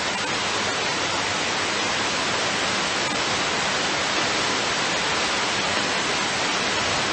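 Steady radio static hiss from an airband receiver in a gap between air traffic control transmissions, with no voice on the frequency.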